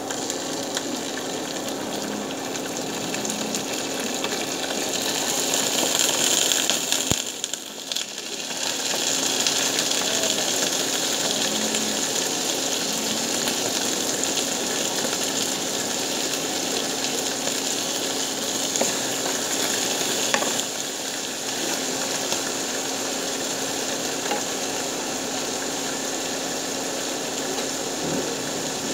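Whole galunggong (round scad) frying in hot oil with garlic and onion, a steady sizzle as more fish are laid into the pan. The sizzle swells about five seconds in, drops away briefly a couple of seconds later, then carries on evenly.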